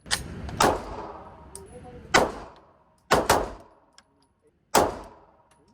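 Six shots from a Glock 43x 9mm pistol fired at an uneven pace, two in quick succession about three seconds in, each with a short ringing tail.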